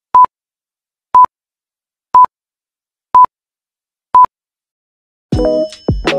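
Five short, high electronic beeps, one a second, marking an intro countdown. Then keyboard music starts about five seconds in.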